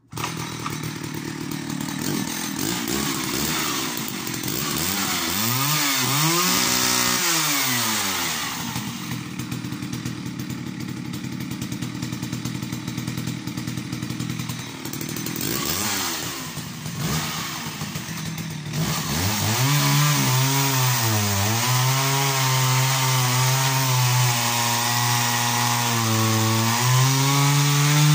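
Vintage Jonsered 80 80cc two-stroke chainsaw firing up and running, blipped up and down in pitch a few times early on. In the last third it settles into a lower, steady note while it cuts through a log under load.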